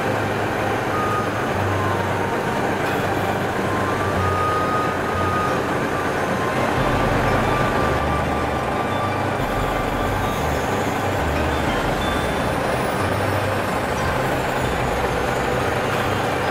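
Heavy truck's diesel engine running steadily.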